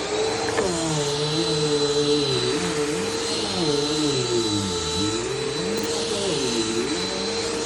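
Upright vacuum cleaner running at full power, with a high whine over a steady motor hum. Its lower tones waver up and down.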